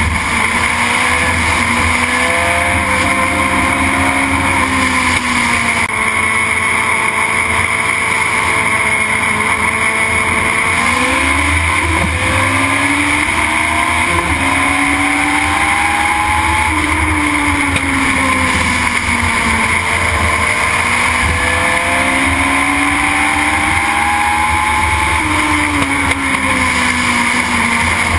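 A Legend car's Yamaha motorcycle engine, heard loud from inside the cockpit at racing speed. Its pitch climbs and falls in long repeating sweeps as the car accelerates and lifts lap after lap, over steady wind and road noise.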